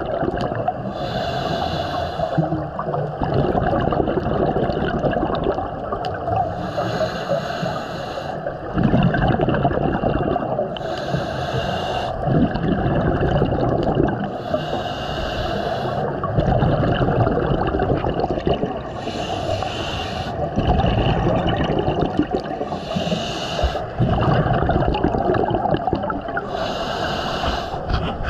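Scuba breathing through a regulator, heard underwater: a hiss on each inhale, about every four seconds, followed by bubbling as the exhaled air escapes, over a steady underwater rush.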